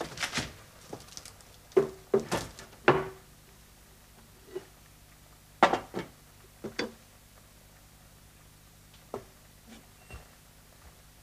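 Kitchen clatter: a plate, pot and utensils being handled and set down on a counter, a handful of separate knocks and clinks with quiet gaps between them.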